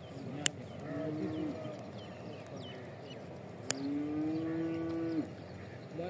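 Two low, drawn-out animal calls, a short one about a second in and a longer one of about a second and a half later on, like livestock lowing in the distance. Two sharp clicks and faint high chirps are heard too.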